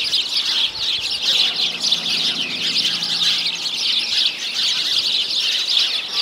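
A dense chorus of many birds chirping and chattering, the quick calls overlapping continuously.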